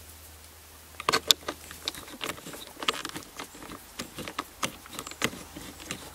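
Irregular light clicks and rattles of a small metal socket tool being handled against the plastic air intake ducting and its fittings, starting about a second in, loudest just after that.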